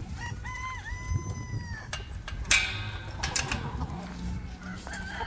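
A rooster crows once: a call that dips early and then ends in one long held note. A single sharp knock follows about two and a half seconds in.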